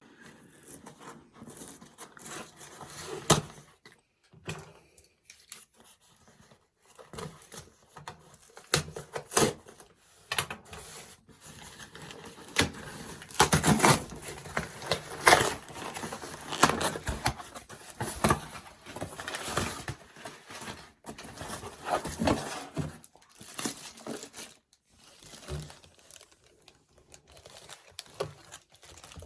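Packaging being opened and handled by hand: irregular tearing, crinkling and rustling of wrapping, with sharp clicks and knocks, busiest in the middle.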